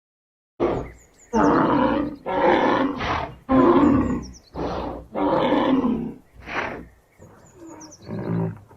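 Recorded lion roar sound effect: a bout of about eight deep, rough roars, each under a second, the last ones quieter, like trailing grunts, with faint bird chirps high in the background.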